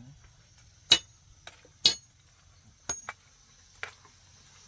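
A metal hand tool strikes four times, about a second apart, each a sharp hit with a short metallic ring. The second strike is the loudest, typical of building work such as nailing boards or tapping masonry.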